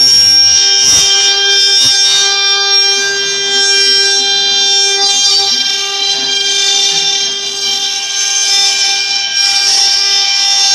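6090 CNC router's spindle running at a steady high speed while carving a statue. It gives a steady, even whine with overtones over a hiss of cutting noise.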